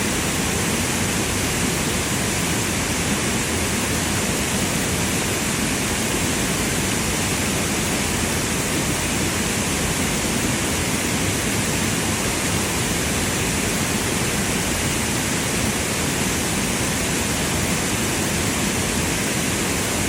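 Steady, unbroken rushing of falling water, with no changes or separate events.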